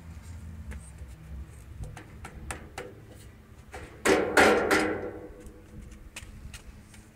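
Metal barbecue cart being knocked by a toddler's hand: a loud cluster of clanking knocks with some ringing about four seconds in, and scattered lighter taps before and after.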